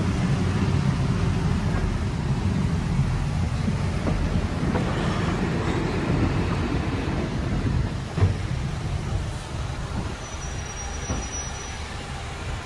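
Heavy diesel truck engine running with a steady low rumble. There is a single knock about eight seconds in, after which the rumble is a little quieter.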